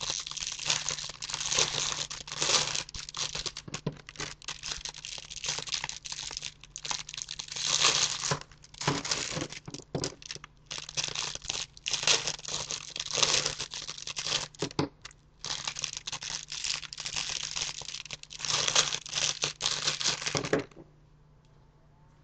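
Foil-lined wrappers of Rice Krispies Treats bars being torn open and peeled off by hand, crinkling and crackling in quick uneven runs. The crinkling stops about two seconds before the end, leaving only a faint hum.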